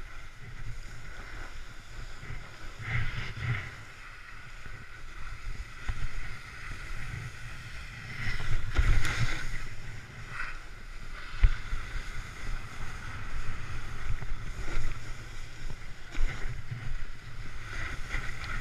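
Snowboard sliding over snow with wind buffeting the microphone: a steady low rumble and rushing noise that swells several times, with a sharp knock about eleven seconds in.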